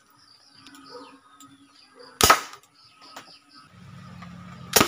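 Homemade PVC toy gun firing a 5.5 mm steel ball: one loud, short pop about two seconds in. A second sharp crack comes near the end over a steady low hum.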